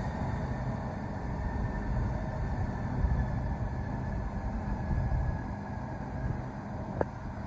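Southeastern Class 395 Javelin electric multiple unit running into the platform, a steady rumble with a thin electric whine that falls slowly in pitch as it slows. A sharp click sounds near the end.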